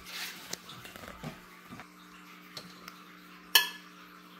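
Metal kitchenware clinking: a few light clicks and knocks, then one sharp metallic clink with a short ring about three and a half seconds in, over a faint steady hum.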